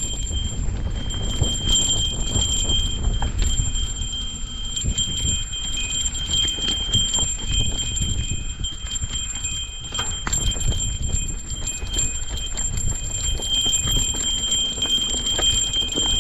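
Walking and bike-pushing noise on a trail: irregular knocks and clatter over a continuous low rumble, as from wind or handling on the microphone. Two thin, steady high-pitched tones run underneath throughout.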